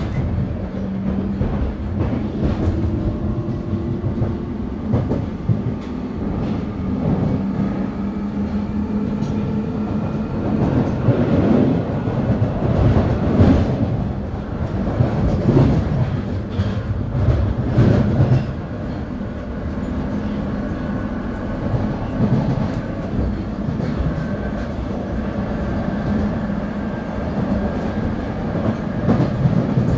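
A London Underground 1996 Tube Stock train accelerating, heard from inside the car: the Alstom GTO inverter traction motors whine in steady tones that climb in pitch as the train gathers speed. Under them are rail rumble and the clatter of wheels over rail joints, which is loudest in the middle.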